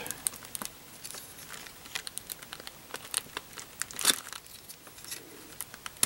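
Thin plastic laminating film crinkling and crackling as a utility knife cuts through it over a foam wing, with scattered sharp ticks, the loudest about four seconds in.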